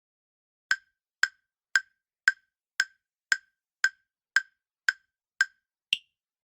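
Countdown timer sound effect: eleven sharp ticks, about two a second, the last one higher-pitched, counting down the time to answer a quiz question.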